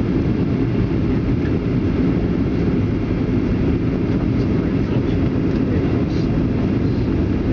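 Steady low cabin roar inside a Ryanair Boeing 737-800 on its landing approach: engine and airflow noise heard from a window seat.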